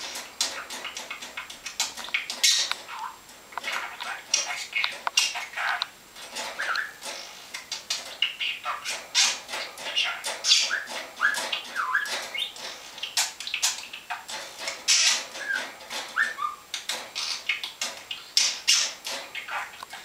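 Budgerigar chattering: a busy, unbroken stream of sharp clicks, chirps and short warbled whistles.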